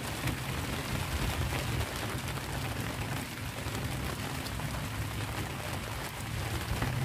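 Steady rain falling on open reservoir water, an even hiss of drops on the surface, over a low steady rumble.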